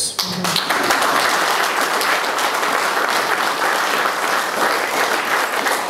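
A crowd applauding, dense clapping that starts a moment in and holds steady, thinning slightly near the end.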